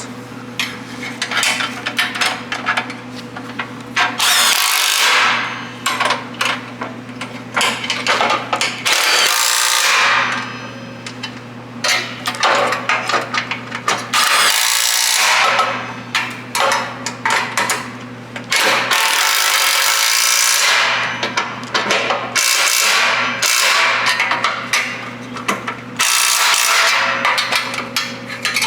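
Bumper bracket bolts being tightened with a ratchet wrench: runs of ratchet clicking, broken by about six louder rasping bursts of one to two seconds each, over a steady low hum.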